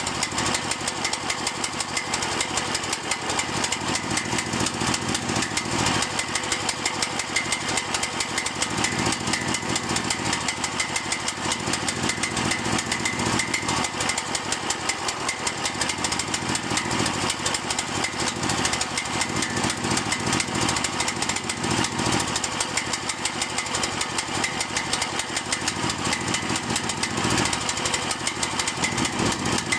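Cael mini excavator engine idling roughly, a fast steady chug that wavers unevenly in loudness. The rough idle is the fault that ends with the engine dying.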